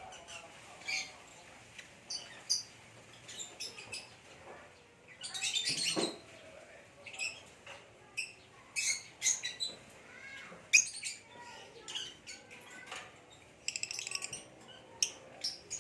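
Lovebirds, a green Fischer's lovebird and a parblue lovebird, chirping in short, sharp, high-pitched calls at an uneven pace, with a denser burst of chattering about five seconds in and a quick run of notes near the end.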